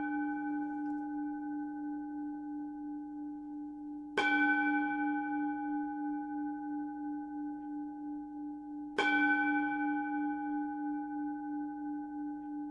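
A Buddhist singing bowl (bowl bell) rings on from a strike just before, then is struck again about four seconds in and again about nine seconds in. Each strike rings out in a long, slowly fading tone with a gentle wobble.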